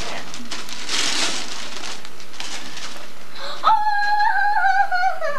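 Wrapping paper rustling and tearing as a present is unwrapped. About three and a half seconds in, a high, drawn-out wail starts suddenly and sags slowly in pitch for a second and a half.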